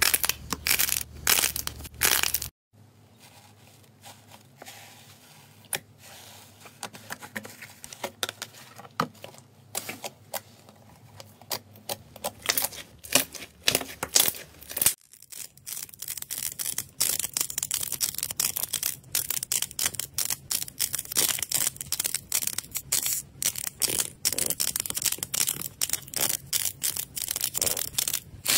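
Hands squeezing and pressing slime and soft clay, a run of crackling clicks. A few seconds in, the sound drops to quieter, scattered pops as glossy slime is pressed by hand. About halfway through it changes to louder, close-packed crackling as soft clay balls are pressed flat with the fingers.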